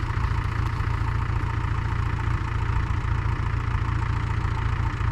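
Frontier OS27 sawmill's petrol engine idling steadily.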